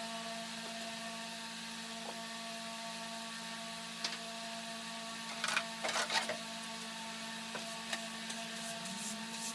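A steady machine hum with a fixed low tone, with a few light knocks and a short clatter of objects being handled about halfway through.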